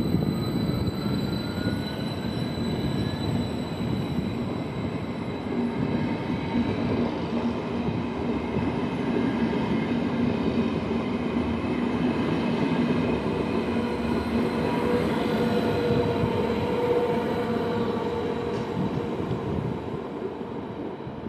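Stadler KISS double-deck electric multiple unit rolling past on the rails, with the steady rumble of wheels on track and electric whines above it; one whine rises in pitch over the first few seconds. The sound dies away near the end as the train moves off.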